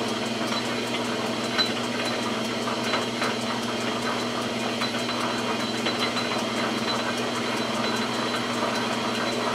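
Metal lathe running steadily with a greased parting tool cutting a back-cut groove into a rifle barrel: a constant motor hum under the scraping noise of the cut, with a few faint ticks. The tool is cutting freely.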